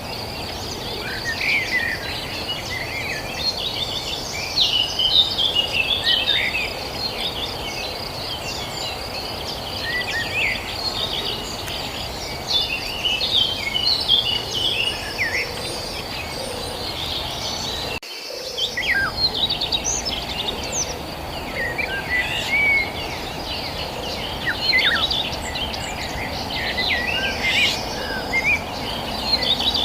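Several small birds chirping and twittering in quick, scattered calls, over a steady high insect trill, like crickets, and a constant low background hiss.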